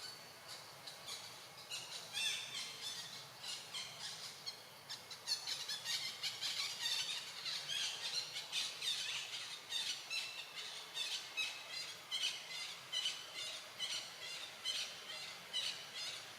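Monkey squealing in a rapid series of short, high-pitched calls, several a second, growing louder about five seconds in.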